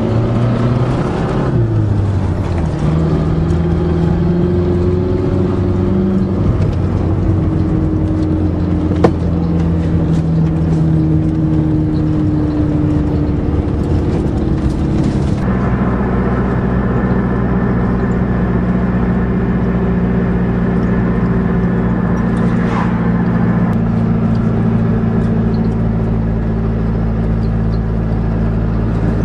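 Engine of a turbo Dodge Aries wagon running while driving with a loaded trailer in tow. Its pitch shifts a few times and steps up suddenly about halfway through. There is one sharp click about nine seconds in.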